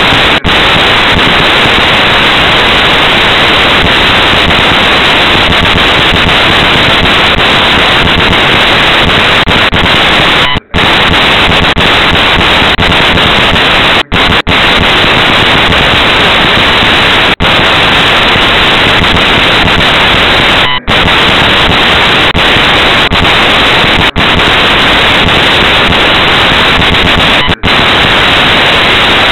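Loud, steady static hiss from a cheap camera's audio, with no voice coming through; it cuts out for an instant several times.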